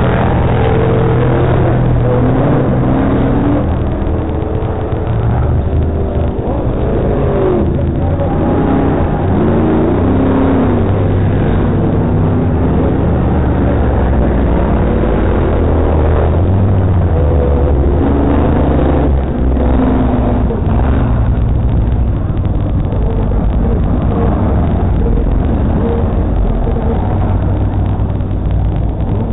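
Ice-racing cars' engines revving up and down as they drift around a frozen-lake track, several at once, over a steady low rumble.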